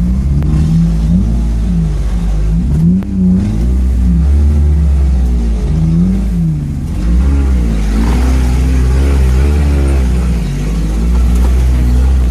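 Vehicle engine running under load, its pitch rising and falling again and again over a steady deep drone.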